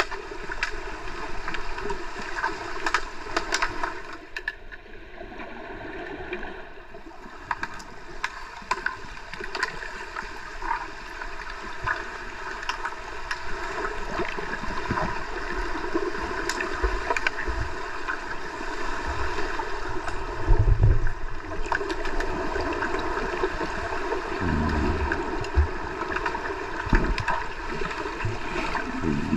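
Underwater sound in a swimming pool during underwater hockey play: a steady watery hiss with many sharp clicks and knocks, and a few dull thumps, the loudest about two-thirds of the way through. It is quieter for a few seconds early in the stretch.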